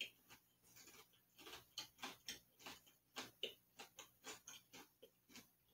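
Someone chewing a crispy-rice and marshmallow treat with the mouth closed: faint, irregular crunches, about three a second.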